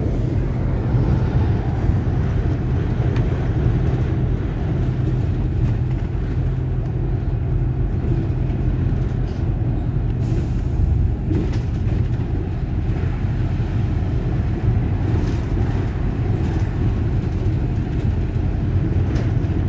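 City bus running: a steady engine hum with road noise, and a short hiss about halfway through.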